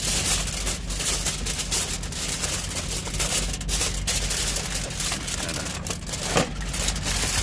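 Aluminium foil crinkling and rustling continuously as it is folded and pressed around a stuffed Cornish hen, over a steady low hum.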